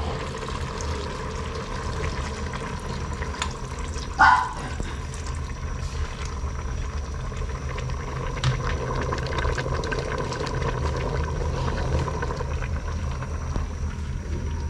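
Thick coconut cream being poured into a cooking pot of bamboo shoots, a steady liquid pouring sound. One brief, louder sound comes about four seconds in.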